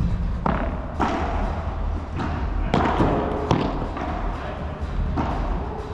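Padel play: the ball struck by rackets and bouncing off the court and walls, a string of irregular sharp knocks over a steady low hum.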